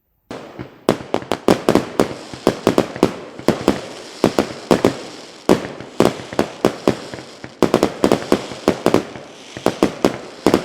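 Firecrackers going off in a rapid, irregular run of sharp bangs, several a second, with crackling between them. It starts about a second in.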